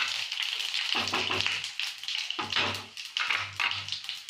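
Whole spices and cumin sizzling in hot oil in a wok while a wooden spatula stirs them. The sizzle is strongest at the start and dies down. From about a second in, irregular knocks and rustles are heard.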